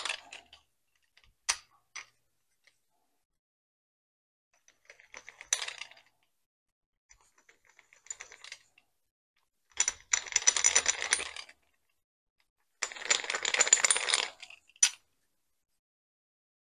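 Hand deburring tool scraping along the edges of a machined aluminium block, a rapid chattering rasp in several separate strokes, the two longest each about a second and a half in the second half. A few sharp clicks come before the first stroke.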